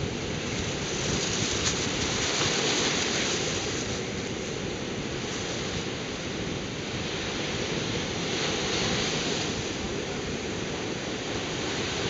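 Ocean surf breaking and washing up a sandy beach: a steady rush of white water that swells louder twice as bigger waves crash.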